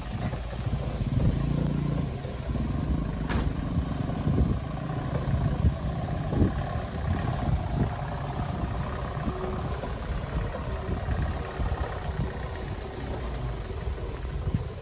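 Diesel truck engine running at low speed as a truck heavily laden with sugarcane crawls along a muddy dirt track, with some clatter. A single sharp click comes about three seconds in.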